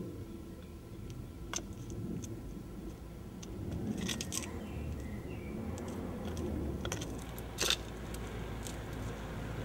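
High-heeled mules clicking and scuffing on a gritty road surface, a few separate clicks and a short scraping cluster, over a low rumble of a car that grows louder in the second half.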